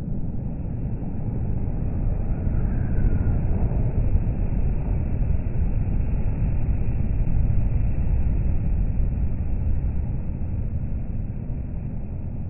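Volvo FH articulated lorry passing close by on a motorway: a steady low rumble of diesel engine and tyres that swells as it goes by and then eases off, with other heavy traffic behind it.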